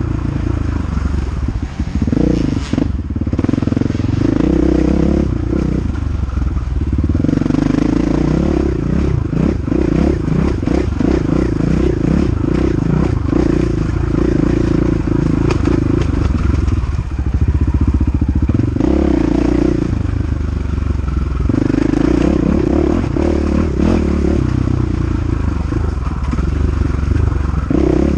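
KTM 500 EXC single-cylinder four-stroke dirt bike engine at race pace, revving up and falling back every few seconds as the throttle opens and closes, with frequent knocks and rattles.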